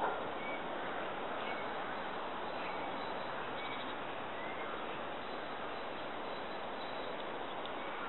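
Short, faint bird chirps about once a second over a steady outdoor background rush.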